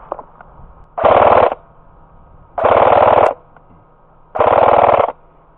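Airsoft rifle firing three short full-auto bursts, each a rapid rattle lasting well under a second, about a second and a half apart.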